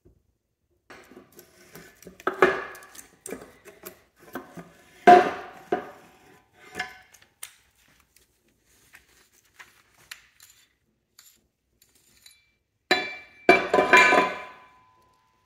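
Steel gears and shafts of a Mercedes G W463 transfer case clinking and knocking against each other and the case housing as they are handled and lifted out. The knocks are irregular, with the loudest about five seconds in and a denser cluster near the end that rings briefly.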